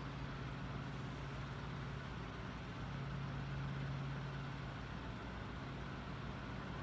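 Emerson 77646-AS 12-inch table fan, about 1949, running steadily on low speed: a steady low motor hum with a soft rush of air from its wide overlapping blades.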